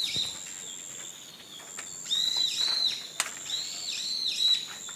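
A bird calling in short, repeated arched whistled notes, mostly in pairs, over a steady high-pitched insect buzz that stops and starts.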